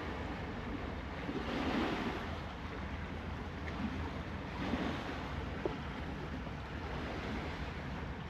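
Sea surf washing among the concrete tetrapods of a breakwater, rising and falling in swells a few seconds apart, with wind rumbling on the microphone.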